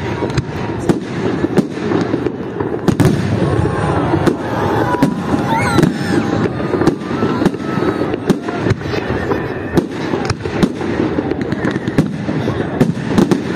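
Fireworks display: aerial shells bursting one after another at irregular intervals, a series of sharp bangs over a steady background din.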